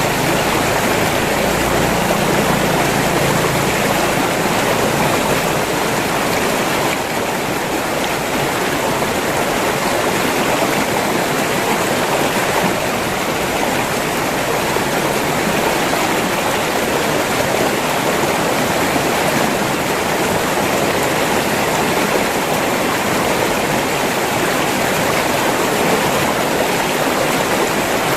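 River water flowing, a steady even rushing with no breaks.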